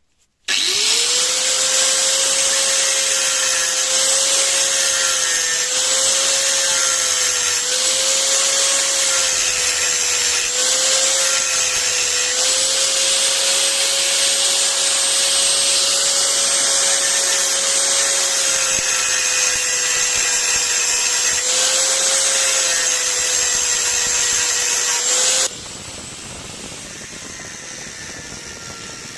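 Hand-held electric power tool starting up and running with a steady motor whine and a loud hiss, its pitch sagging briefly several times as it is loaded against the work. About 25 seconds in it drops abruptly to a much quieter steady noise.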